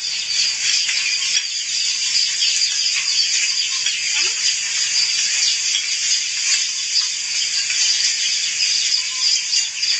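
A steady, high-pitched buzzing chorus of insects, with a few faint clicks over it.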